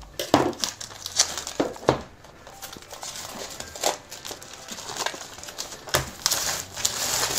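A cardboard gimbal box being opened and its packaging handled: irregular crinkling and rustling, broken by several sharp clicks and knocks, growing busier near the end.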